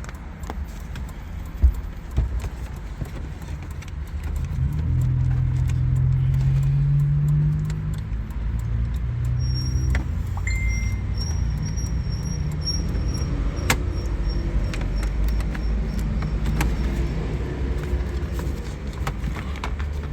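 Clicks and rattles of plastic steering-column trim and small parts being handled, over a steady low hum. A deeper drone rises in pitch between about four and eight seconds in.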